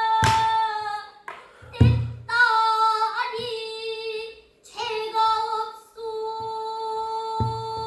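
A child singing pansori unaccompanied except for a buk barrel drum: long held, bending notes, with sharp drum strokes about 0.3 and 1.8 seconds in and again near the end. A long steady note is held through the last two seconds.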